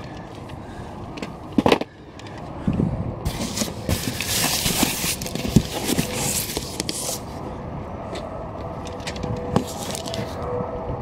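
Paper packing material rustling and crinkling as boxed figures are pulled out of a cardboard shipping carton, with scattered small knocks of boxes being handled. A sharp knock sounds about two seconds in.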